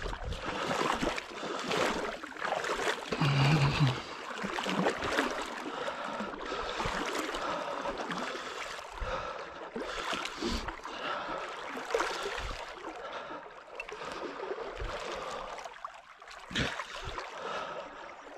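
Flowing stream water with irregular splashes, rustles and knocks, the sound of someone making their way along a creek. A brief pitched sound comes a few seconds in.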